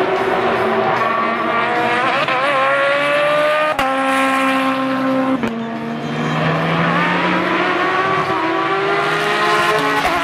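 Race car engines at high revs: open prototype and GT race cars accelerating past. The engine note climbs steadily and breaks off sharply twice, then drops lower and climbs again.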